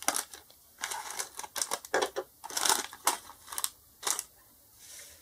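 Clear plastic bags of LEGO pieces crinkling and rustling as they are handled and moved around, with loose bricks rattling inside. A quick string of short, irregular crinkles.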